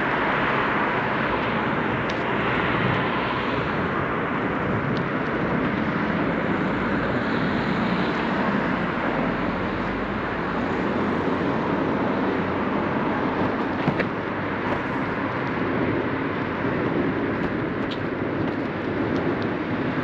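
Steady road traffic noise heard from a bicycle riding beside a busy city street, with a brief click about fourteen seconds in.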